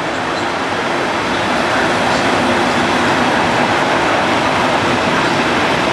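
Class 37 diesel-electric locomotive with an English Electric engine running as it passes close by light engine. The sound grows a little louder over the first couple of seconds as it draws level, then holds steady.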